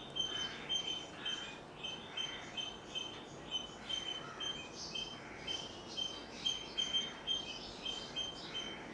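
A bird chirping over and over, short high notes about two or three a second.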